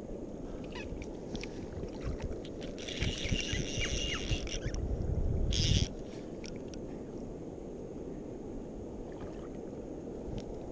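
Shallow seawater washing and wind on the microphone, held just above the surface. From about three to six seconds in, the fly reel whirs close by over handling rumble, which ends with a sudden clack.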